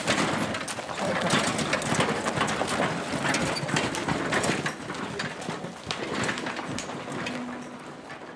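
Horse-drawn cart on rubber tyres moving over a gravel track: irregular clopping of hooves and crunching and clattering of the wheels and cart, growing fainter near the end as it draws away.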